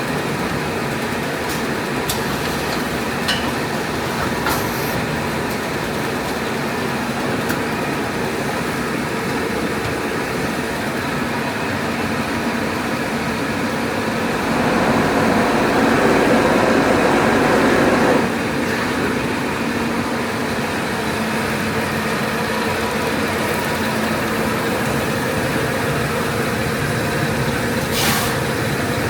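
ATR-320B auto turret rewinder running at production speed, a steady mechanical noise of rollers and drive. It grows louder for a few seconds past the middle, with a few faint clicks.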